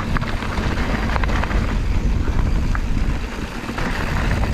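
Wind rumbling on an action-camera microphone as a mountain bike speeds down a dirt trail, with tyre noise and scattered clicks and rattles from the bike.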